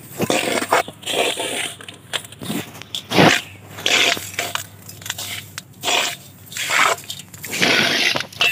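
Dry potting mix of rice husk, cocopeat, compost and sand being stirred and scraped in a metal tub with a flat hand tool, in irregular crunching, scraping strokes about once a second.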